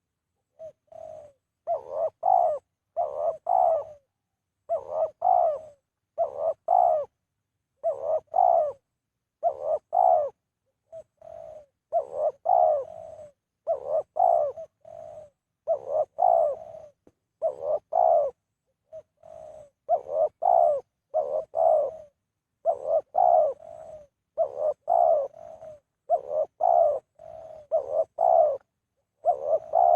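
A captive male dove cooing over and over in short phrases of two or three notes, with brief pauses between phrases.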